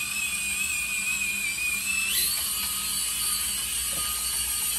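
High whine of an SCX24 1/24-scale crawler's stock electric motor and gears as it drives while towing a loaded trailer. The whine jumps up in pitch about two seconds in.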